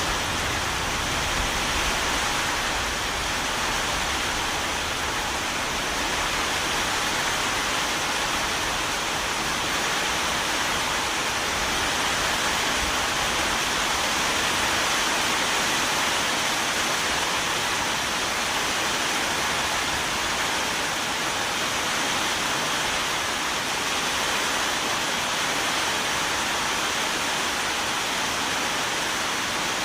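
Steady heavy rain, an even hiss with no pauses. A low rumble underneath dies away over the first few seconds.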